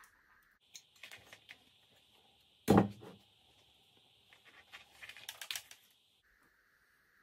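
A speaker woofer set down on a workbench with one sharp, loud knock, followed by light clicking and rustling as loose speaker wires are handled.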